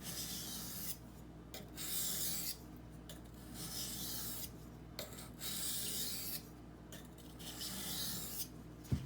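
Knife blade of CPM 20CV steel being drawn across a wet Norton water stone, a rasping hiss in about five long strokes of roughly a second each, with brief pauses between them as the edge is worked toward a burr.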